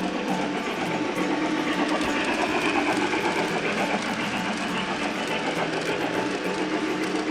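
Model train's passenger cars and caboose rolling along the track, a steady rattle and clatter of wheels on rail that grows a little louder for a few seconds in the middle as the cars pass closest.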